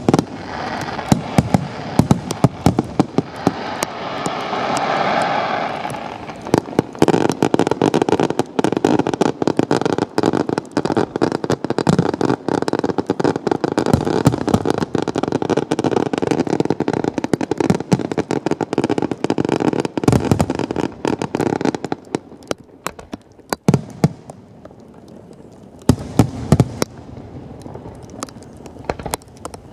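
Electronically fired fireworks and firecrackers going off in a dense, rapid string of pops and bangs over a continuous crackle. About three-quarters of the way through the string thins out, and a last cluster of bangs comes near the end.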